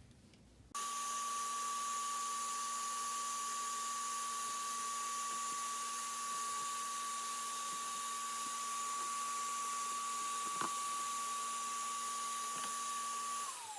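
Vacuum cleaner switched on about a second in, running steadily with a whine, drawing air through the mask under test; near the end it is switched off and its pitch falls as the motor winds down.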